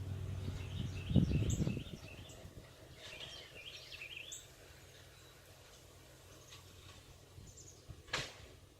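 Songbirds singing short, quick chirping phrases. About a second in a low rumbling burst sounds, and a single sharp click comes near the end.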